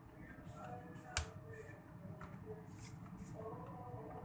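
Laptop bottom case being pried open with a plastic prying tool: faint scraping and rustling of the plastic shell, with one sharp click about a second in as a clip lets go.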